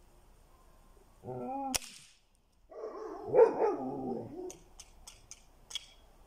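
A single sharp crack of a Hatsan Striker air rifle shot about two seconds in, with a dog barking just before and after it. Near the end there are several light clicks.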